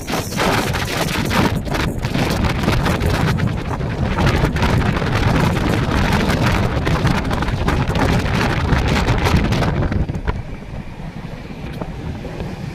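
Rushing wind and running noise of a moving passenger train, heard from an open coach door, with wind buffeting the microphone. It eases off about ten seconds in.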